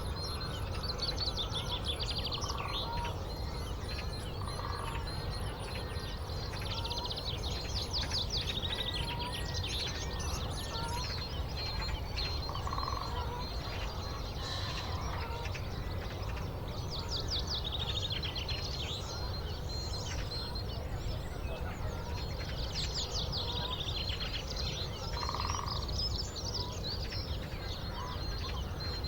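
Several wild birds singing, with one bright, rapid song phrase repeating every several seconds and a fast, very high trill during about the first third, over a steady low rumble.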